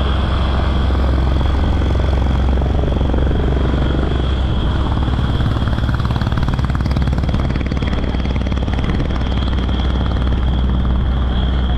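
Steady low rumble of a moving road vehicle's engine and tyres, heard from inside the vehicle, with a thin high-pitched whine held at one pitch over it.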